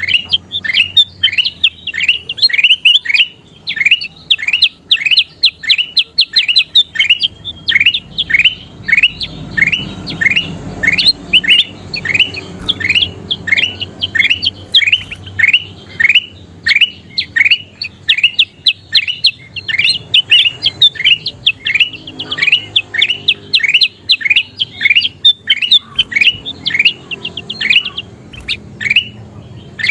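Kutilang emas, a bulbul, calling in a long rhythmic series of short, sharp notes that sweep downward, about two to three a second, with a quicker run near the end. This is the kind of recording kept-bird owners play to get their birds singing.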